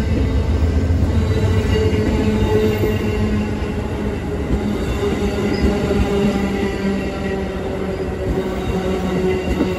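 Passenger train coaches rolling past on the rails: a continuous rumble of wheels on track, with steady squealing tones from the wheels held throughout.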